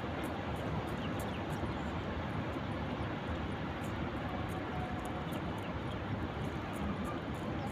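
Wind blowing across the phone's microphone: a steady rushing noise with an uneven low rumble.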